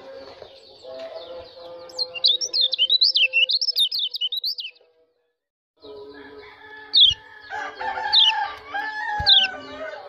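White-eye (pleci) giving rapid, high twittering 'ciak' calls for a few seconds. After a brief silence it gives sharp single chirps that fall in pitch, about one a second, over lower drawn-out calls of other birds.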